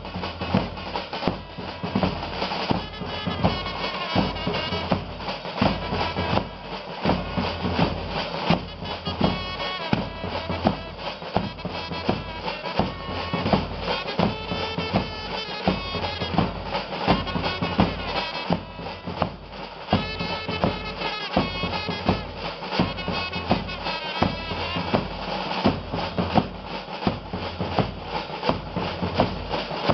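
Band music from bass drums beating a steady rhythm under a melody played on wind instruments.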